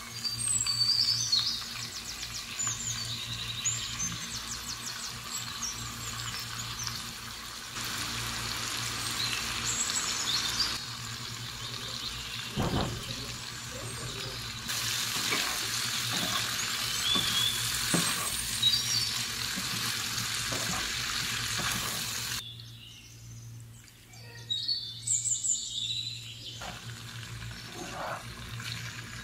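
Chicken livers and bell pepper strips sizzling in a hot oiled pan, with a louder burst of sizzling near the start as the raw livers go in. A few knocks are heard, fitting a wooden spatula stirring.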